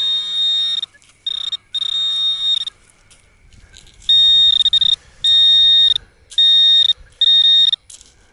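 Metal detector beeping over a buried metal target: a run of about six short, high electronic tones, each under a second, with gaps between them.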